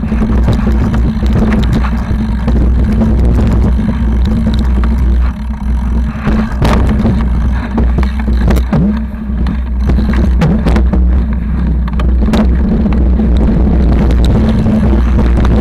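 Mountain bike rolling fast over a rough, rocky dirt trail: a continuous heavy rumble of tyres and wind on the mounted camera, with the frame and mount rattling and sharp knocks now and then as the wheels hit stones.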